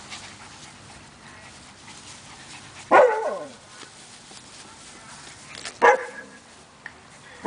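Siberian Husky puppies barking while play-wrestling: three short, loud barks about three seconds apart, the first falling in pitch, the last right at the end.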